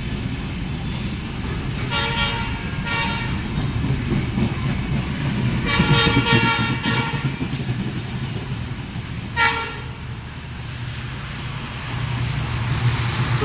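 Train horn giving short toots in groups: two near the start, a quick run of several around the middle, and one more a few seconds later. Under them runs the steady low rumble of the passenger coaches rolling past.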